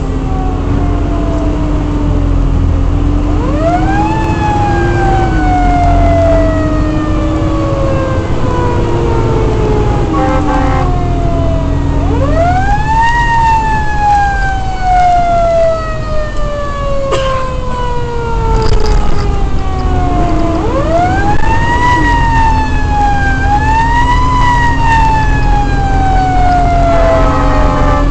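Fire engine siren heard from inside the cab. It is wound up again and again, each time rising quickly and then falling slowly in pitch, over the truck's steady engine rumble.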